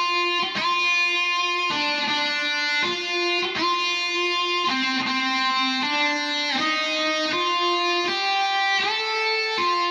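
Intro theme music: a guitar melody of ringing, sustained notes, each new note struck every half second or so.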